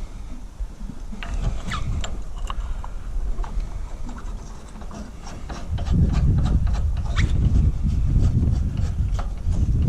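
Light clicks and scrapes of hands handling small-engine carburetor parts, with wind rumbling on the microphone from about six seconds in.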